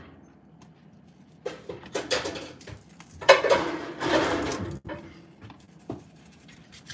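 Kitchen clatter of dishes and utensils being handled, in a run of short bursts from about a second and a half in to nearly five seconds, then a couple of light knocks.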